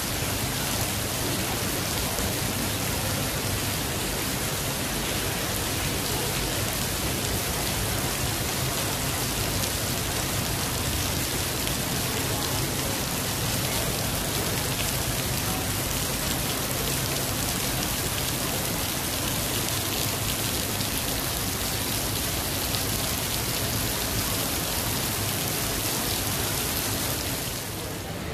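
Steady heavy rain: an even rushing hiss with a faint low hum beneath it, changing abruptly near the end.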